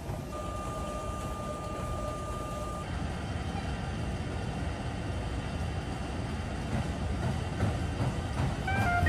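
Treadmill running, a steady mechanical rumble of motor and belt. A steady high tone sounds about half a second in and lasts about two seconds.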